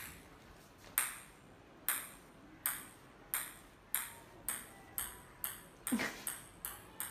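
A celluloid ping-pong ball bouncing on a tiled floor: about a dozen sharp, high clicks that come quicker and quicker as the ball settles.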